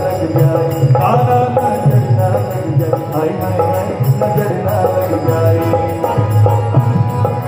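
Loud amplified Hindi devotional song, with a singing voice over a steady beat.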